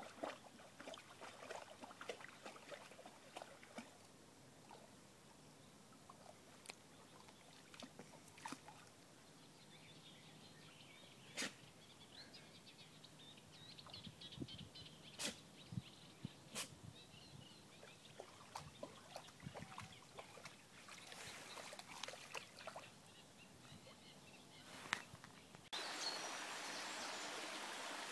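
Faint splashing and sloshing of a small dog wading through shallow water, with a few sharp clicks along the way. About 26 s in it gives way to the steady rushing of a small stream.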